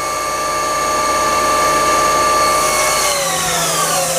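Haas ST-10Y CNC lathe spindle running steadily at about 3,000 RPM with a whine of several steady tones, then slowing down about three seconds in, its pitch falling smoothly.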